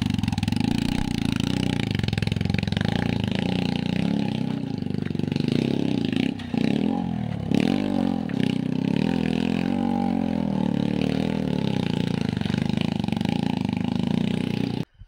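Single-cylinder engine of a TVS Apache RTR motorcycle running under load as the bike climbs a loose rocky slope. The revs drop and pick up again about six to eight seconds in, and the sound cuts off suddenly near the end.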